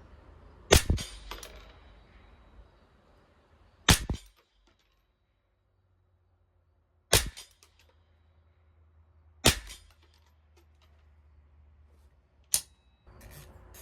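Five single .22 LR rimfire rifle shots, about three seconds apart, each a sharp crack with a short tail. A rubbing, scraping noise starts near the end.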